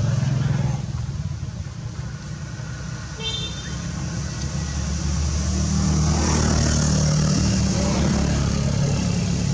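A motor vehicle's engine running nearby, a steady low rumble that grows louder about halfway through.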